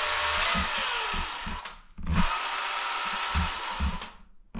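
Tamiya Grand Hauler RC truck's electric motor and gearbox whining in two throttle bursts of about two seconds each, with the truck stuck and hardly moving. The wheels spin because the drive has no power divider or locked axle.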